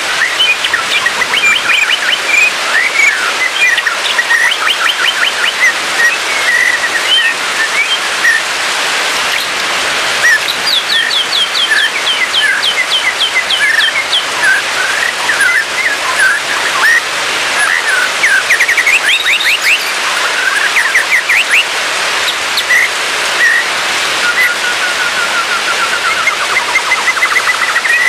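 White-rumped shama singing varied phrases of clear whistles and fast repeated notes, with a rapid run of high notes about a third of the way in and a falling series near the end, over a steady hiss.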